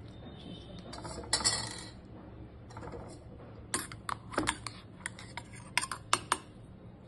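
Steel spoon clinking and scraping against a stainless steel mixer-grinder jar as it stirs coarsely ground onion: a scrape about a second in, then a quick run of sharp clinks in the second half.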